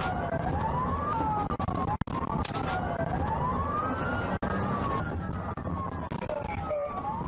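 Police car siren wailing, its pitch sweeping up and down every couple of seconds, heard from inside the squad car over its engine and road noise during a pursuit.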